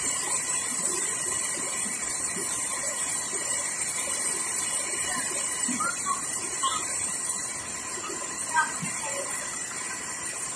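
Steady rush of a tall waterfall pouring onto rocks, with faint voices now and then in the background.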